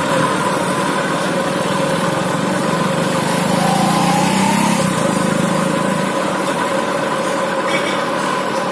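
A motor vehicle engine running steadily close by, with a brief rise and fall in engine pitch about four seconds in, over the general noise of street traffic.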